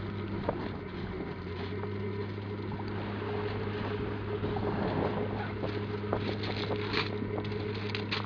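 A steady low mechanical hum, like an engine running, under wind and surf noise, with scattered faint clicks.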